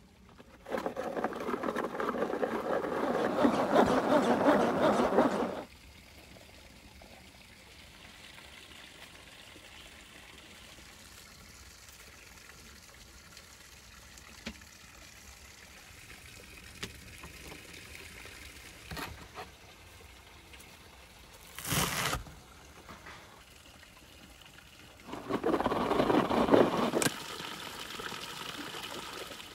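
Hand-operated kitchen food chopper whirring and rattling as its blades spin through vegetables: one run of about five seconds near the start and a shorter run of about two seconds near the end. In between, a faint steady background with a few light clicks and a brief noisy burst.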